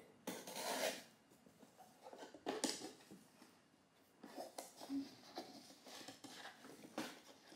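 Packing tape on a cardboard shipping box being slit and torn open with a pen, then the cardboard flaps scraping and rustling as they are pulled open. A long tearing rasp near the start, then shorter scrapes and rustles.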